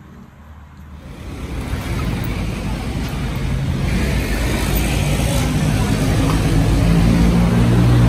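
Road traffic noise from a busy street: passing motor vehicles with engines running, starting suddenly about a second in and growing louder, with a heavy engine's low, steady drone near the end.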